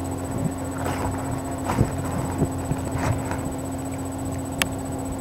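A boy chewing food close to the microphone: a few soft, irregular mouth sounds over a steady low hum, with one sharp click about four and a half seconds in.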